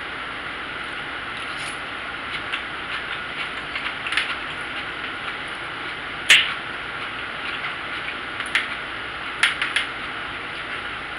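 Eating sounds: chewing with scattered sharp clicks of a utensil against the dish, the loudest about six seconds in and a quick cluster near the end, over a steady hiss.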